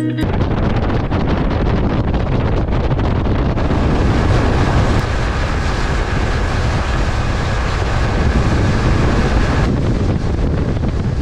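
Wind buffeting the microphone on an open fishing boat, a steady rushing noise with the low rumble of the boat and water under it.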